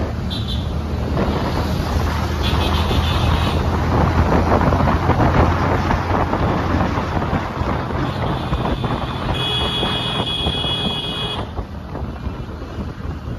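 Road and engine noise of a moving vehicle with wind buffeting the microphone, over a steady low hum. A steady high-pitched tone sounds for about two seconds a little past the middle.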